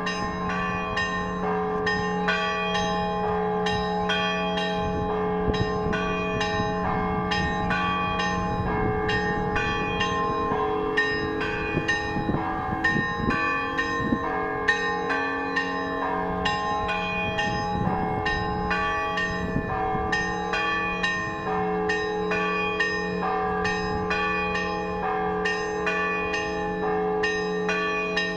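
Russian church bells ringing a zvon. Small bells are struck rapidly, several strikes a second, over the steady ringing hum of larger, lower bells.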